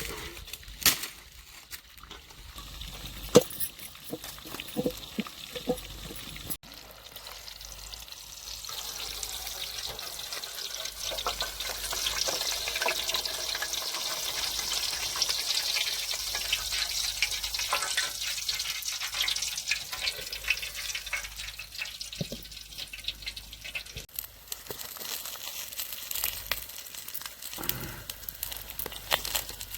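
A few sharp clicks and knocks, then food sizzling in hot oil in a cooking pot: a hiss that swells from about eight seconds in and eases off again, returning more faintly near the end.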